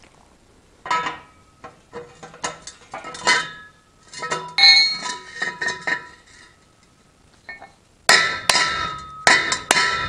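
Metal tubes clanking and ringing as they are handled and knocked together, scattered clinks for the first several seconds. From about eight seconds in, a run of hard ringing metal blows, about two or three a second.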